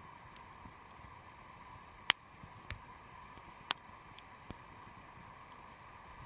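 Wood bonfire crackling: a steady low hiss broken by a few sharp pops, the loudest about two seconds in and another a little past the middle.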